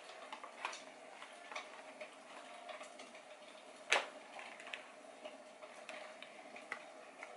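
Light clicks and taps from handling a cardboard game box and a stiff paper sheet, with one sharper click about four seconds in, over a faint steady hum.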